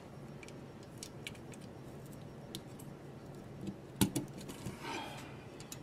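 Light clicking and rustling of clear plastic snowflake ornament pieces being handled and pressed together, with one sharp click about four seconds in.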